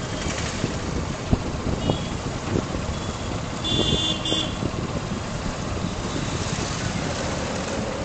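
Busy city street traffic heard from a moving scooter: a steady low rumble of engines and tyres, with a vehicle horn beeping briefly about two seconds in and again around four seconds in.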